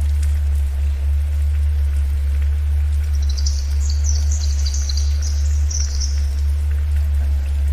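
A steady low theta-wave tone over a constant patter of rain. About three seconds in, a bird sings a quick, high twittering phrase lasting about three seconds.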